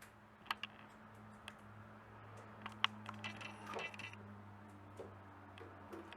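A few sharp, faint clicks and taps from handling and cutting pieces of caramel, the loudest a little before the 3-second mark, with a brief rustle just after. A steady low electrical hum runs underneath.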